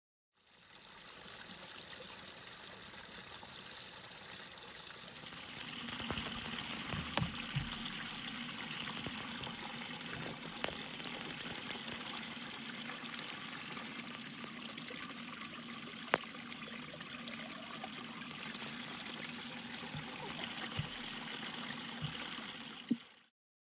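Small forest brook trickling and splashing over mossy rocks in a little cascade, a steady rush of water that grows louder about six seconds in. A few sharp knocks stand out over it.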